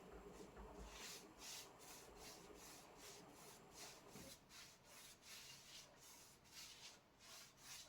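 Faint, rhythmic brush strokes rubbing back and forth over the surface of an old door, about two to three strokes a second.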